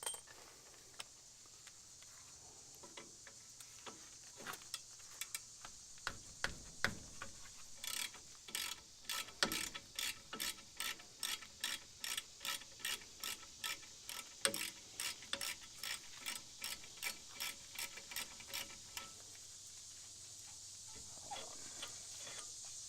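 Ratchet wrench clicking at an even pace, about three clicks a second, for roughly ten seconds while backing out a 3/8 hex brake caliper pin bolt. A few scattered clicks come before the steady run.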